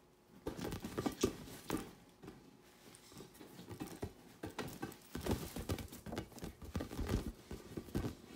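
A white-faced capuchin monkey scrambling and tumbling with a large inflatable play ball on a bed: irregular soft thumps and pats on the ball with rustling of the bedspread, easing off briefly about two seconds in and then busier again.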